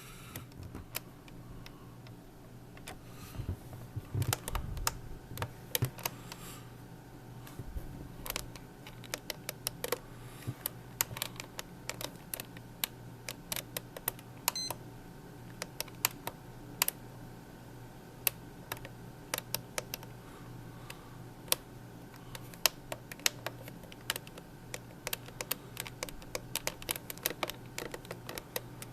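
Plastic buttons on a Mattel Barbie clock radio clicking as they are pressed again and again, irregular single clicks and quick runs of clicks, over a steady low hum.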